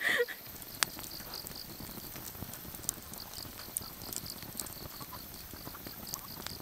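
Wood campfire crackling, with sharp pops every second or so, over the steady pulsing chirp of insects.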